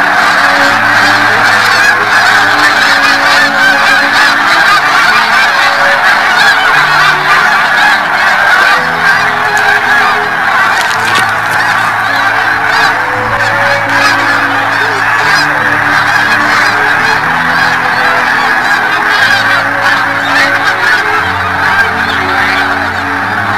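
A large flock of snow geese honking all at once: a dense, steady din of overlapping calls.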